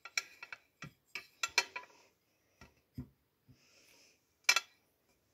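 Handling noises: a scattering of sharp clicks and taps as a clear plastic food container is moved about, several close together in the first two seconds and a louder pair near the end.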